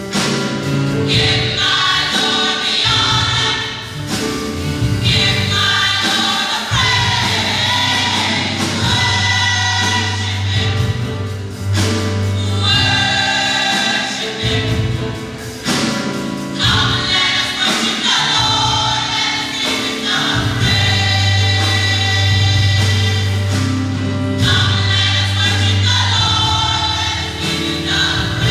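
Gospel choir of women and men singing in harmony, with steady low bass notes held underneath in long stretches.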